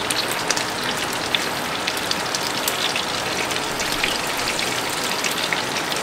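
Heavy rain falling steadily on a camping tarp overhead: a constant hiss dotted with many small drop ticks.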